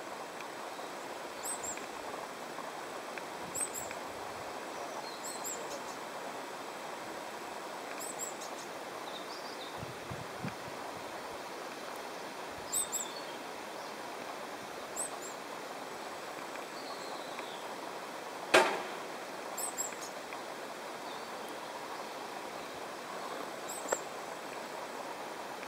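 Steady outdoor valley ambience with faint, high bird chirps every couple of seconds, and one sharp click about two-thirds of the way through.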